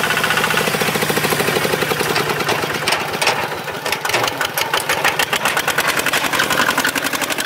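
Small Singto Thong STT155 farm tractor's single-cylinder diesel engine chugging steadily under load while pulling a four-disc plough, with a rapid, even beat throughout.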